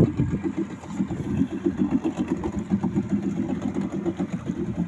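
Small fishing boat's engine idling, with a fast, even chugging.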